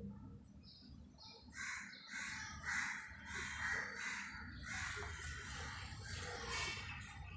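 Crows cawing, a run of harsh caws about two a second that starts a little over a second and a half in.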